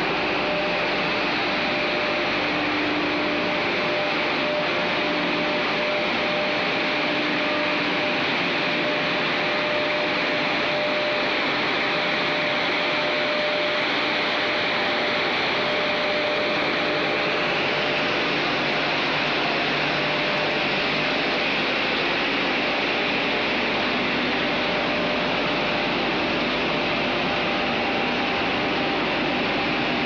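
Wood-chip processing plant machinery running: a steady, even industrial din with a few faint hum tones. The hiss gets slightly brighter a little past halfway.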